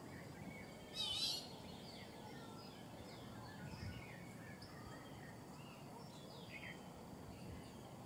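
Tropical forest ambience: small birds giving short, scattered chirps and calls over a low, steady background rumble, with one louder, brief call about a second in.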